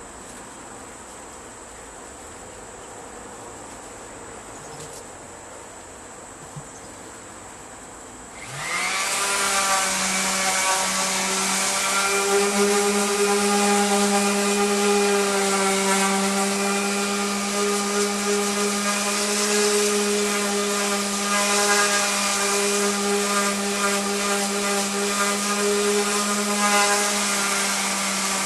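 Faint steady hum, then about eight seconds in an electric power sander starts up, quickly winding up to speed, and runs steadily with a motor whine over a broad hiss.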